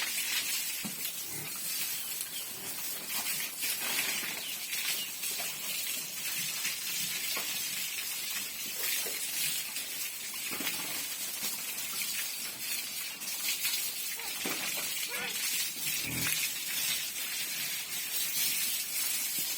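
Pigs in a pen making occasional grunts and snuffles, over a steady hiss.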